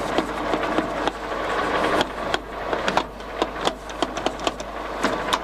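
Colchester Triumph 7 1/2 metal lathe running in its slowest gear: a steady mechanical whir with frequent irregular clicks and knocks from the machine.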